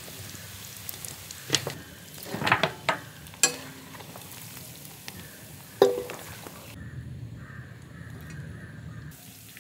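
Mutton pieces sizzling in ghee in a large iron pan, with long metal ladles scraping and clanking against the pan as the meat is scooped out. There are several sharp clanks, the loudest a ringing one a little past the middle.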